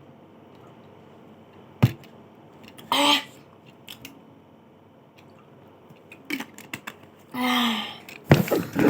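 Low room hiss broken by a few scattered clicks and knocks, with two short voice sounds, one about three seconds in and a longer one near the end.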